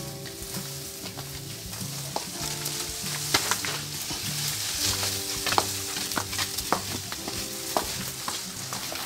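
Crackling and rustling of leaves and twigs as a potted tamarind bonsai's branches brush through bushes while it is carried, with many sharp snaps. Background music with a stepping bass line plays underneath.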